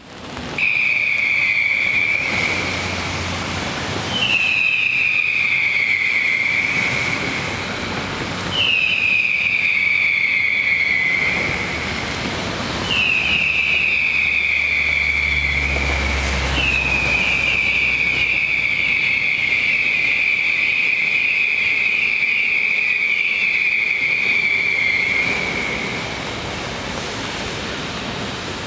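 Whistling fireworks: five volleys of shrill whistles about four seconds apart, each sliding down in pitch. The last volley lasts much longer, with several whistles overlapping. A steady hiss and a low rumble of bursts run underneath.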